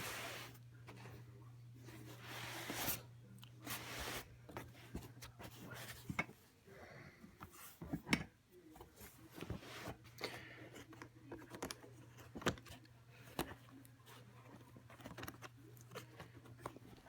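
Handling noises from the vacuum's attachment box and its contents: scattered clicks, taps and rustling as things are moved and lifted out, over a steady low hum.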